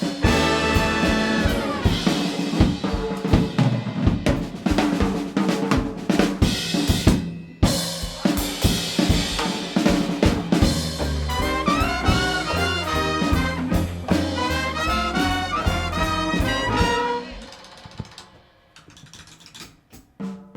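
Jazz big band playing an instrumental passage with brass, saxophones and drum kit swinging at full volume, dropping abruptly to a soft, sparse passage near the end.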